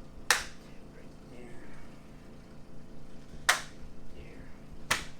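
Three sharp clicks during a standing chiropractic adjustment: one just after the start, one about three and a half seconds in, and one near the end.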